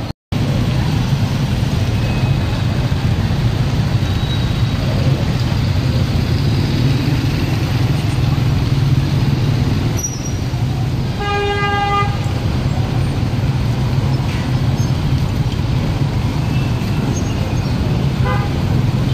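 Street traffic with motorcycle and tricycle engines running steadily. A vehicle horn sounds once, briefly, about eleven seconds in.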